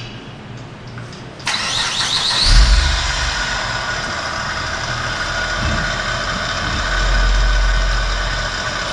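2008 Acura TL's V6 engine cranked and started about a second and a half in, then running steadily at idle.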